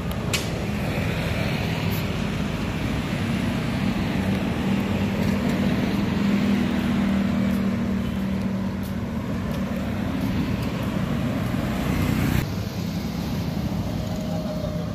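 Steady road traffic noise with a low engine drone that swells in the middle. About twelve seconds in it drops abruptly to quieter traffic.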